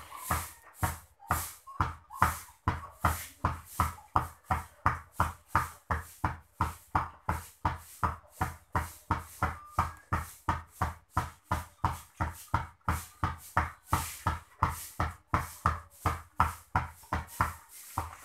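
A basketball being dribbled in a steady, even rhythm, about two to three bounces a second.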